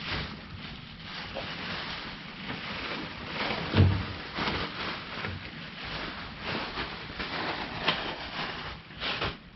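Steady rustling and scraping handling noise with scattered knocks, a heavier knock about four seconds in.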